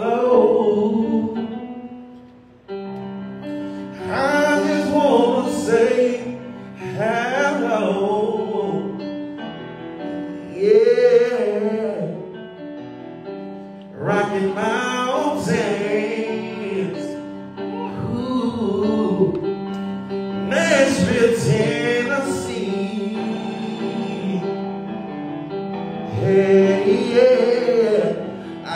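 A man singing a soulful, gospel-style melody over held keyboard chords.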